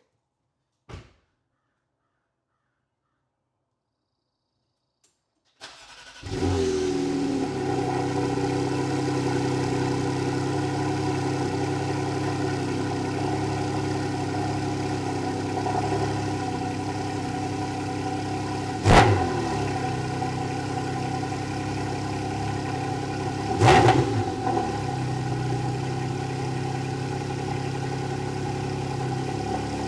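Porsche 718 Cayman GT4 RS's 4.0-litre flat-six cold-starting on its stock exhaust: after a few seconds of quiet it cranks briefly, catches at once with a short flare and settles into a steady fast cold idle. Two sharp clicks cut through the idle, about five seconds apart.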